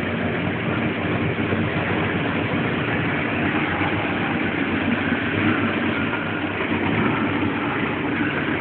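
Chevrolet Opala's carbureted straight-six engine idling steadily.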